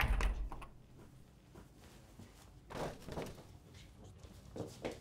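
A deep low thud, then a few slow, soft footsteps on a floor.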